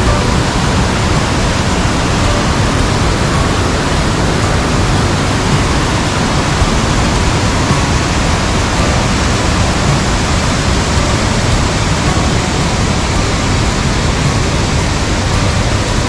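Loud, steady rush of a wide waterfall heard up close, an even, unbroken roar of falling water.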